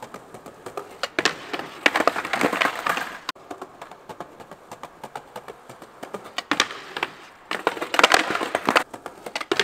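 Skateboard decks clacking and scraping on a slatted wooden bench ledge during double darkslide attempts, two boards flipped upside down, with sharp clatters of boards hitting the wood and the stone paving. The clacks come in a cluster about two seconds in and again in a longer run from about six and a half seconds, quieter between.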